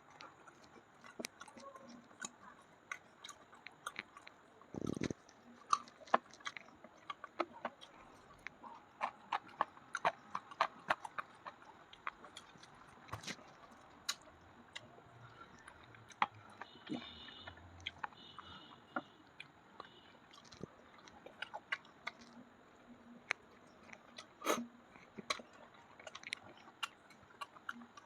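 Close-miked chewing and mouth sounds of a person eating kachori with chicken curry: many short wet clicks and smacks. There is a brief low thump about five seconds in.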